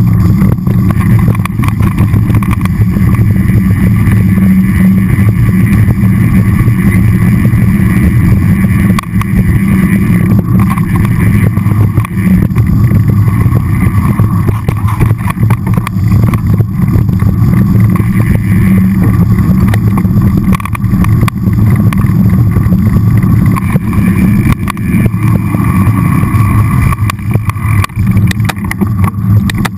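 Mountain bike rolling fast down a dirt singletrack trail: a loud, steady low rumble of tyres and wind, broken by many small knocks and rattles from bumps in the trail.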